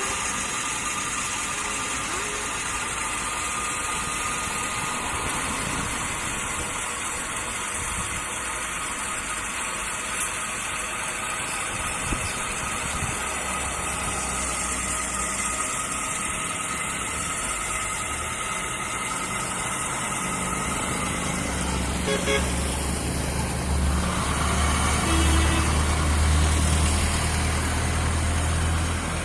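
Motorised machinery running steadily. About two-thirds of the way through, a deep low hum builds and holds.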